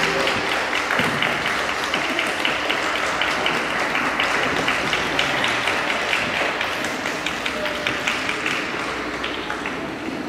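Audience applauding and clapping, slowly fading toward the end.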